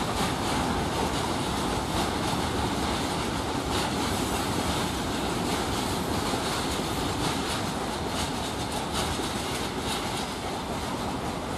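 Freight train wagons rolling past, a steady rumble of wheels on rail with faint irregular clatter, easing off slightly near the end.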